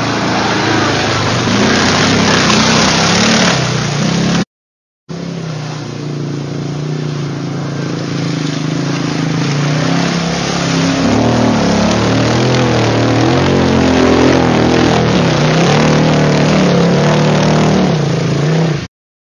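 Quad bike (ATV) engine running loud and revving up and down as it works through deep mud. The sound drops out for about half a second, about four and a half seconds in.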